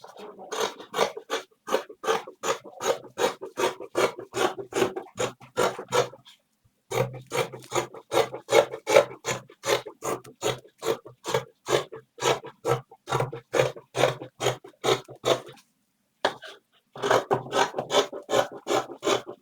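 Scissors cutting through fabric in quick, even snips, about three a second, with two short pauses.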